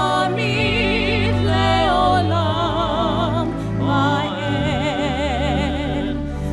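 Jewish liturgical singing: a voice with wide vibrato sings long held notes over sustained low accompaniment.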